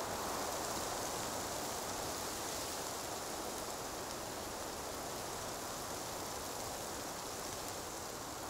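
Steady outdoor ambience: an even hiss with no distinct sounds in it.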